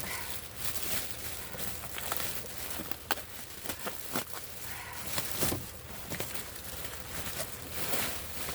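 Plastic bags rustling and crinkling as they are opened and rummaged through, with scattered clicks and light knocks of plastic items being handled; a sharper click about three seconds in and a knock about halfway through.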